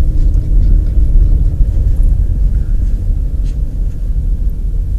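Steady low rumble of a car driving, heard from inside the cabin, its tyres running on packed snow.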